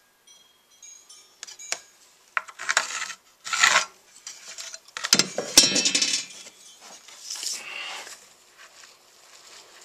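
Tools being handled on a wooden slab while a line is marked: a few sharp metallic clinks and knocks with short scraping strokes in between.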